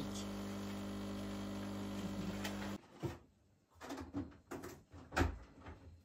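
Bosch Tassimo pod coffee machine's pump humming steadily while it dispenses coffee into a cup, cutting off about three seconds in. It is followed by a few scattered light knocks and clinks.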